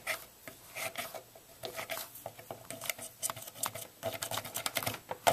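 A plastic power plug scraping and clicking against a wall outlet as it is wiggled and pushed into the socket: a run of small irregular clicks and rubs, with one louder click near the end.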